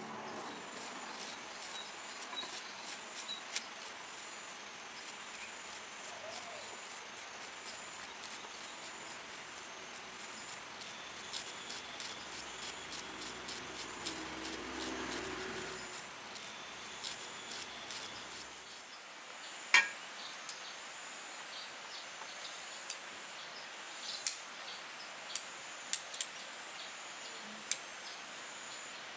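Bonsai pruning shears snipping ficus twigs: a sharp snip a little past the middle, then a string of single snips near the end. Behind them is a steady high chirring of insects.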